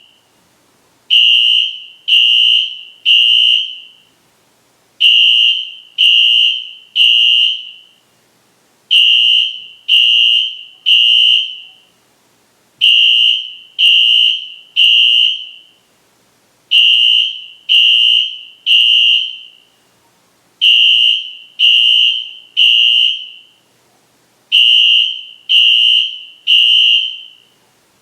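Wheelock fire alarm horn sounding a loud, high-pitched tone in groups of three blasts with a short pause between groups, repeating about every four seconds: the three-pulse temporal pattern used as the evacuation signal.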